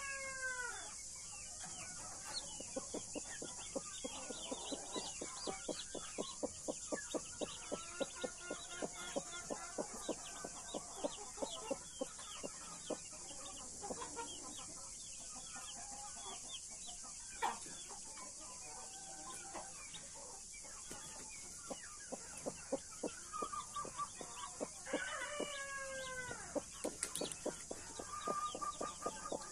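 Australorp and Brahma chicks peeping rapidly and continuously around a blue mother hen, with her low clucking among them. Twice, at the start and again about 25 seconds in, an adult chicken gives a longer call that falls in pitch.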